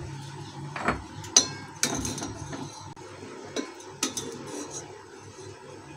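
A spoon knocking and clinking against a steel pot and a glass bowl as rasgullas are lifted out of their syrup and into the bowl. About half a dozen separate light clinks come at irregular intervals, most of them in the first four seconds.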